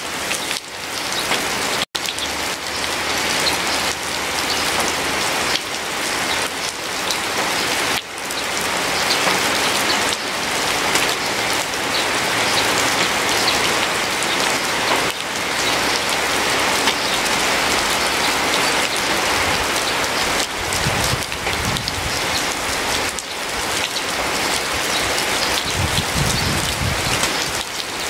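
Steady rain falling, a dense even patter of drops, with a momentary break in the sound about two seconds in.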